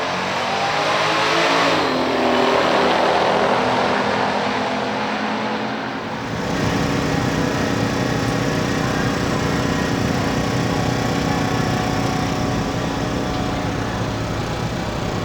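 A V8 muscle car passing at speed, its engine note dropping in pitch as it goes by. About six seconds in the sound changes abruptly to a V8 running at a steady engine speed.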